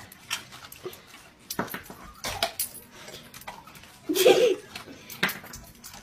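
Scattered sharp clicks and taps on hard kitchen surfaces, with a short vocal sound, like a brief laugh, about four seconds in.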